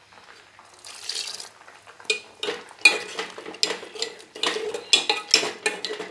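Steel spoon stirring chunks of ash gourd in a thick gravy in an aluminium pot, with irregular clinks and scrapes of metal on the pot's sides starting about two seconds in.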